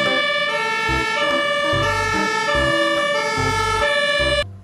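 Siren tones stepping between several pitches, with low notes sounding underneath at intervals; the sound cuts off abruptly about four and a half seconds in.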